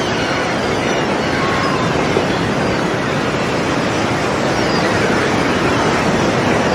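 Sea surf washing against rocks: a continuous, even rush of water at a steady level.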